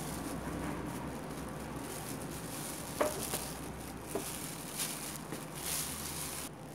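Spoon spreading mayonnaise over grated vegetables in a ceramic baking dish: soft wet scraping and patting, with a few light clicks of the spoon against the dish from about halfway in.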